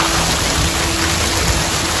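Fountain jets of water spraying up and splashing back into a pool: a steady rushing hiss.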